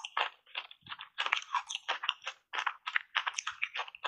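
Ice coated in matcha powder being crunched and chewed in the mouth: a quick, irregular run of short crisp crunches, about three or four a second.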